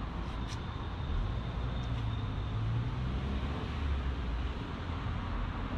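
Road traffic: a steady low rumble of a passing vehicle, swelling a second or so in and easing off near the end.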